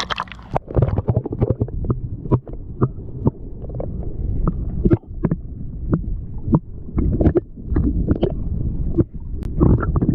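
Muffled underwater sound from a camera held under the water: a low rumbling slosh with frequent sharp clicks and pops throughout.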